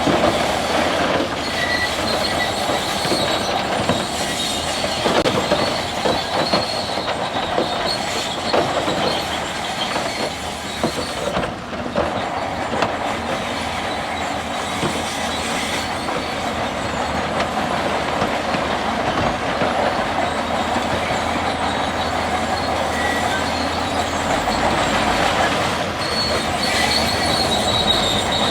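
Crawler bulldozer at work, its steel tracks squealing and clanking steadily, with a high metallic squeal coming and going.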